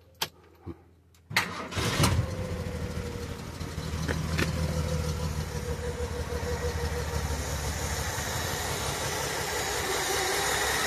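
Two light clicks of the ignition key, then a Ford V6 engine cranks briefly on the starter, catches about two seconds in and settles into a steady idle.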